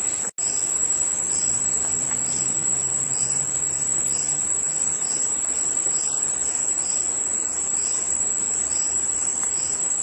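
Steady, high-pitched insect chorus of a crickets' kind, with softer rhythmic pulses about once a second beneath it. The sound cuts out for an instant just after the start.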